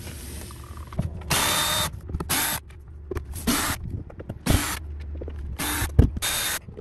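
Craftsman cordless drill/driver running in about six short bursts, backing out the screws along the base of a carpeted RV wall panel, with a few knocks in between.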